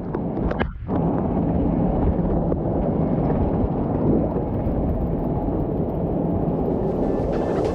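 Rushing whitewater heard up close from a kayak, a steady muffled rumble that sits mostly low, with a few short knocks about half a second in.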